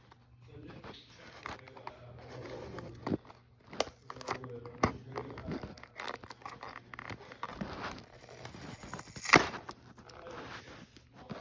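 Toy packaging being torn open and crinkled by hand: irregular rustling and tearing with scattered clicks, and one sharp, louder snap near the end.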